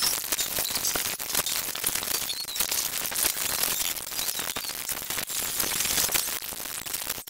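Soundtrack of an animated TV series sped up many times over, so that its voices, music and effects run together into a dense, high-pitched hiss full of rapid crackles.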